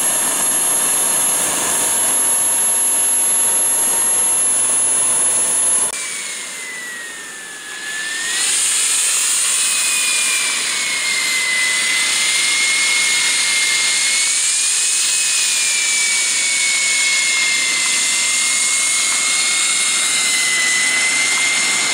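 Radio-controlled model jet's engine running on the ground with a steady high whine and hiss; about six seconds in the sound changes abruptly and dips briefly, then the whine comes back with its pitch wavering up and down as the throttle changes.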